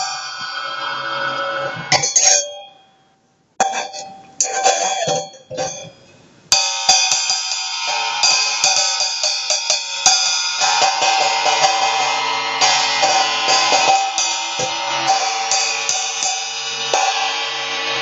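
Wuhan 14-inch hi-hat cymbal struck with a drumstick, ringing. The ring is cut off at about three seconds, a few single strikes follow, and from about six and a half seconds a fast, continuous run of strokes keeps the cymbal washing.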